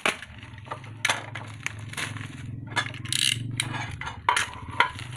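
Handling of a wristwatch and its packaging: a string of sharp clicks and small metallic clinks, with a rustle about three seconds in, over a steady low hum.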